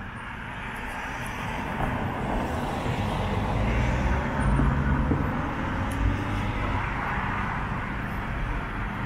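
Road traffic: a car going by, swelling louder around the middle and then easing off.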